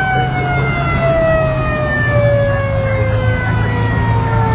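Fire engine siren heard from inside the cab, one long wail whose pitch falls slowly and steadily, over the steady low drone of the truck's engine.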